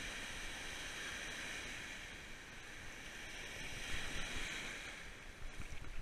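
Calm ocean surf washing onto a beach: a steady hiss that swells a little about four seconds in.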